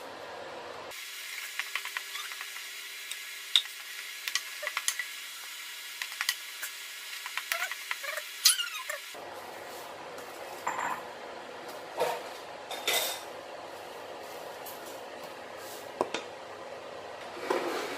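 Wooden spatula stirring noodles in a stainless steel pan: scattered clicks, scrapes and short squeaks over a steady hiss.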